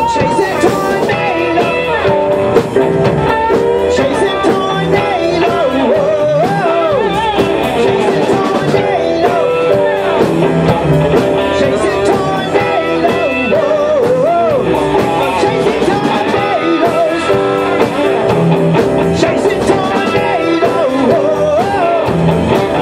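A rock band playing an instrumental passage: electric guitar lead with bending, wavering notes over electric bass, drum kit and stage piano.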